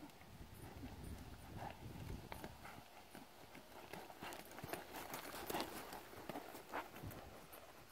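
Hoofbeats of a horse trotting on soft arena sand, muffled thuds and scuffs that grow loudest as the horse passes close by.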